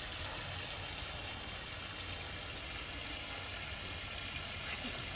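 Steady background noise: a continuous high hiss over a low rumble, unchanging throughout, with no frog call.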